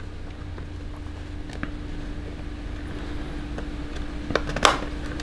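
Cardboard trading-card hobby box being handled and pried open: a few soft taps and scrapes, then a sharper snap of cardboard near the end, over a steady faint hum.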